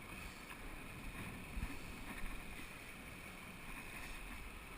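Steady rushing noise of a flowing river, with wind on the microphone and a few soft low thumps.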